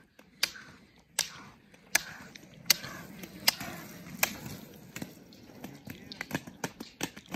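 Roller-ski pole tips striking asphalt in a steady skating rhythm, a sharp click about every three-quarters of a second, over the low rolling of the roller skis' wheels. The clicks come faster and closer together in the last couple of seconds.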